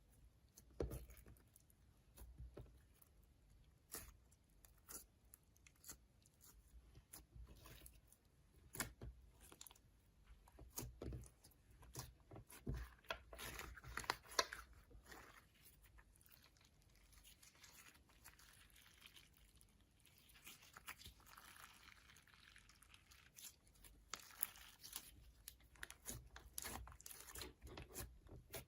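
Slime being squeezed and stretched by hand: faint, irregular sticky clicks, pops and crackles, with a few longer squishy, crinkling stretches.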